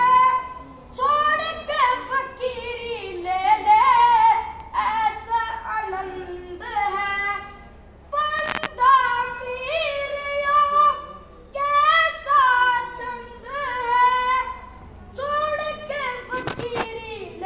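A boy singing a Haryanvi ragni folk song solo and unaccompanied, in long held, wavering phrases with short breaths between them.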